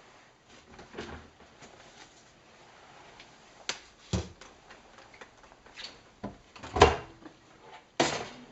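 Several separate clunks and knocks of a washing machine's door being handled, the loudest about seven seconds in.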